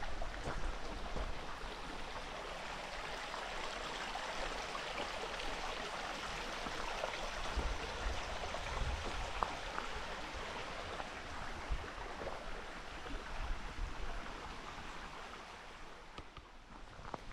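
Steady rush of running water, fading over the last couple of seconds.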